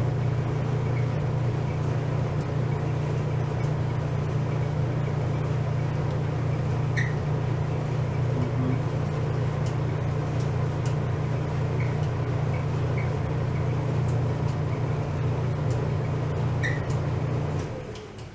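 Clothes dryer running with its drum turning and a steady low hum, now without vibration after its blower motor was cleaned of built-up lint. A few faint short squeaks come through, which the repairman suspects come from the drum support wheels. The hum stops suddenly near the end as the dryer shuts off.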